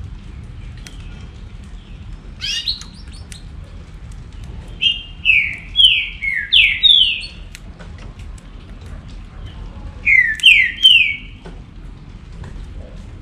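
Green-winged saltator (trinca-ferro) singing: three loud phrases of slurred whistled notes, a short one early, a run of five notes in the middle and three notes near the end, over a steady faint hiss.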